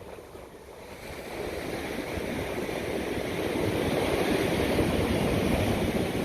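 Ocean surf: a wave breaking and rushing in, its noise swelling over a few seconds and then easing.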